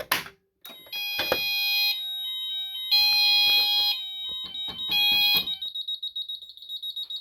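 Fire alarm system going into alarm, set off from a manual call point. A sharp click comes first, then within a second several electronic sounders start at different pitches, pulsing on and off. From about five and a half seconds a single high, fast-warbling tone carries on.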